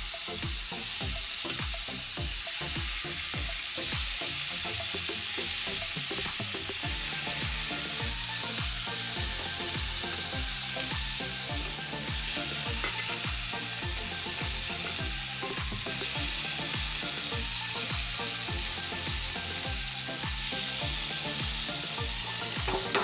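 Paneer cubes sizzling steadily as they are lightly sautéed in hot oil in a frying pan, the pieces stirred and turned now and then.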